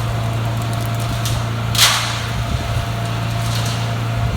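Portable concrete mixer's gas engine and hydraulic drive running steadily with a constant hum while the raised drum rotates and discharges water. There is a brief hiss about two seconds in.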